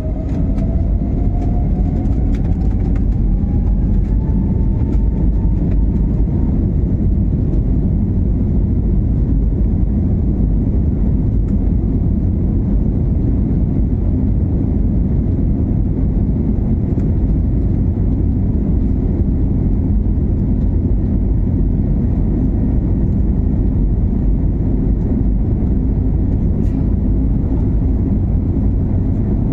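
Airliner jet engines at take-off thrust: a loud, steady low rumble, with an engine whine rising in pitch over the first several seconds.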